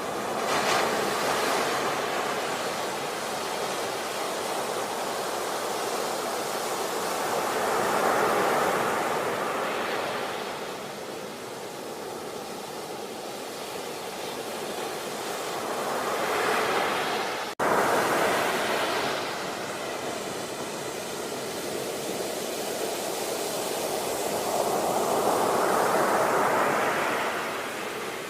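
Sea waves breaking, the surf swelling and falling away roughly every eight seconds. There is a sudden momentary cut-out a little past halfway.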